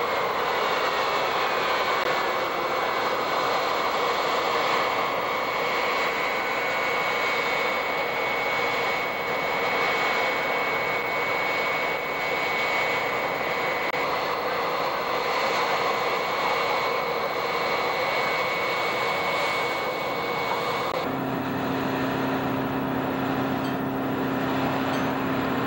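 Jet turbine running steadily on the ramp: a high whine over a continuous rush of noise. About 21 s in the whine drops away and a low steady hum comes in.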